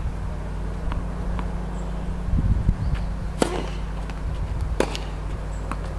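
Tennis ball struck by rackets twice, two sharp pops about a second and a half apart as a point gets under way, with faint ball bounces on the hard court before them.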